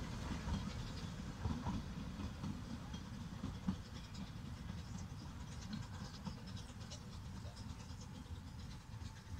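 Narrow-gauge steam train of the Llanberis Lake Railway running away into the distance, its low rumble fading steadily.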